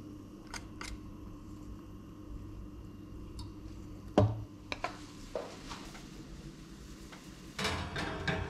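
A wire whisk scraping cake batter out of a metal saucepan, with light clicks of metal on metal and one sharp knock about four seconds in. Near the end, a metallic rattle as the cake pan is set onto an oven rack.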